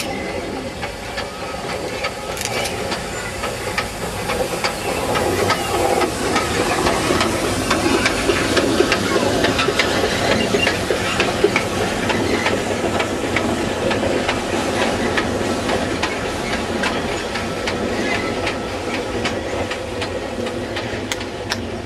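Steam tank locomotive with its coaches passing by under steam: hissing steam and exhaust with a rattle of clicks from wheels on the track. It grows louder to a peak about halfway through as it passes, then slowly fades as it moves away.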